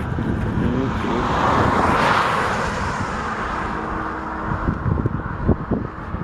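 A vehicle passing by, its noise swelling to a peak about two seconds in and then slowly fading, over a steady low rumble.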